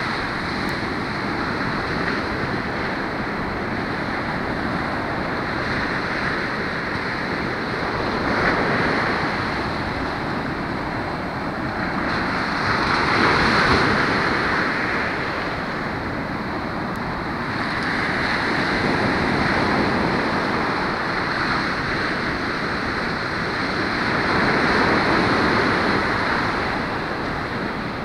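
Ocean surf on a sandy beach: a continuous wash of breaking waves that swells every five or six seconds as each wave breaks and runs up the sand.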